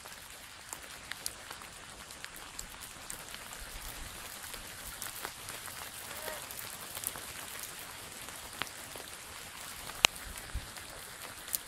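Rain falling into puddles: a steady light patter with scattered sharper drips, and one louder tick near the end.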